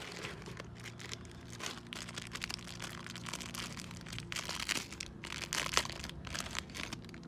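Clear plastic packaging bags crinkling as hands rummage among them and handle a bagged acrylic charm. The irregular crackles grow busier and loudest a little after halfway.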